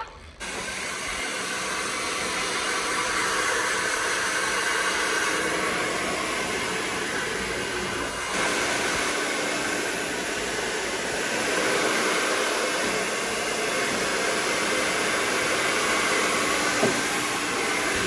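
Handheld hair dryer switched on and blowing steadily as hair is styled, its sound shifting slightly as it is moved about the head.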